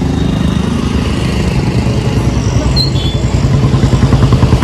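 A small engine running with a steady low throb that settles into a more distinct rapid pulse, several beats a second, near the end.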